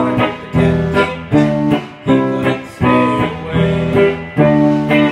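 Les Paul-style electric guitar strummed in a steady rhythm of chords, about two strokes a second.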